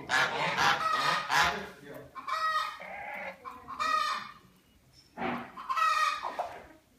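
Chickens clucking in a series of short, pitched calls, with a harsher, noisier burst of squawking in the first second and a half.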